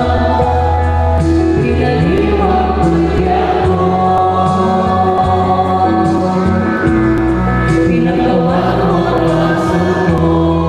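A choir singing a hymn in long held notes over a sustained low accompaniment.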